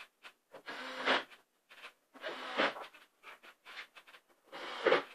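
Irregular short bursts of scraping and rubbing with light knocks, about six in all, from hands working screws and parts inside a cabinet.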